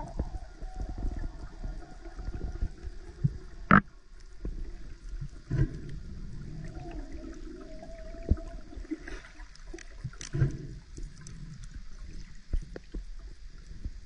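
Muffled underwater sound recorded beneath the surface: low water noise with irregular knocks and clicks, one sharp click about four seconds in, and faint wavering tones near the middle.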